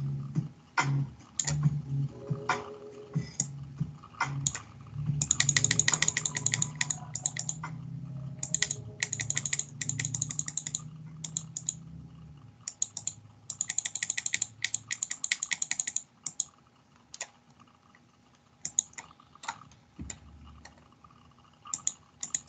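Bursts of rapid clicking and tapping on a computer keyboard, with scattered single clicks between them. A low droning sound runs under the first half and fades out about halfway through.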